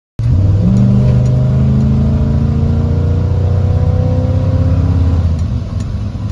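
GMC 3500 pickup's engine accelerating under load, heard from inside the cab: a loud engine note rising steadily in pitch for about five seconds, then easing off.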